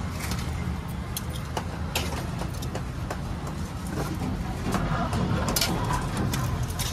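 Steel ladles and serving spoons clinking against steel pots and a plate as rice and curry are dished out: a dozen or so short, sharp clinks scattered irregularly, over a steady low background rumble.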